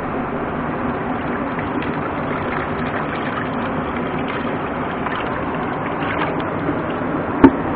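Steady rush of shallow stream water running over rocks. Light splashing comes late on as a bucket of fish is tipped into the water, and a single sharp knock sounds just before the end.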